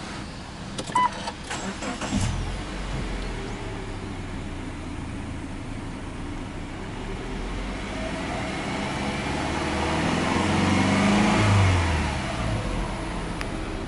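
Subaru Legacy B4 2.5i's EJ25 flat-four engine starting about two seconds in, then idling steadily, heard from inside the cabin. Later it is revved slowly in park to about 3,000 rpm and drops back to idle near the end.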